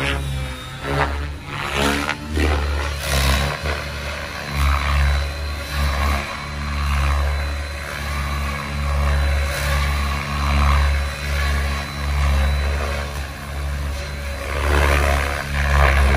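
Electric radio-controlled helicopter (Align T-Rex 650X) in flight: a low hum from the rotor blades under a higher whir from the motor and blades, swelling and fading as it moves about and loudest near the end.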